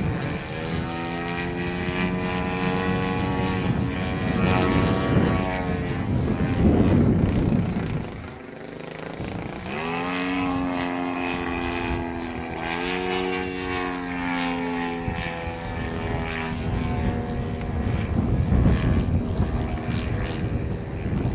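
Radio-controlled model Yak aerobatic plane's engine and propeller buzzing overhead, its pitch and loudness rising and falling through the manoeuvres. It is loudest about six to seven seconds in, drops away sharply about eight seconds in, then climbs back in pitch.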